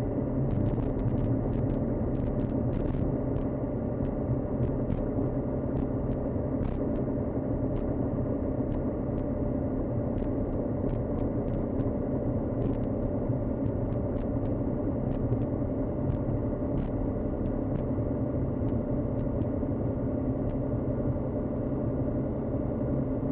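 Cirrus SR20's piston engine and propeller running steadily at taxi power, heard inside the cabin as an even drone. Faint scattered clicks sound over it.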